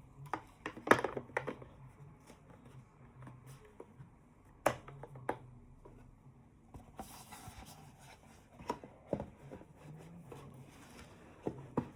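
Hands handling the headphones and their packaging: scattered small clicks and taps, with a brief rustle about seven seconds in, over a faint low hum.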